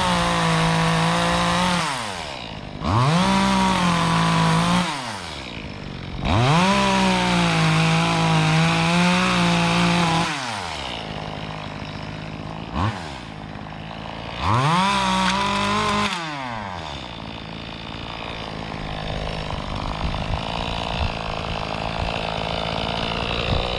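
Small 25cc two-stroke gas chainsaw cutting tree limbs, revved to full throttle four times for about two to four seconds each, the engine note sagging a little under load in the cuts and falling back to idle in between. It idles for the last several seconds.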